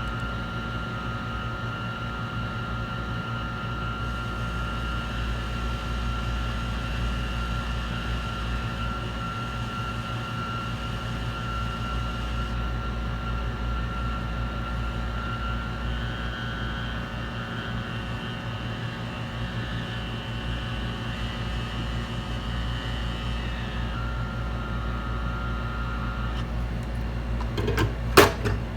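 Small electric blower running steadily with a low hum and a thin high whine, typical of bench repair equipment such as a hot-air rework station. A few sharp clicks come near the end.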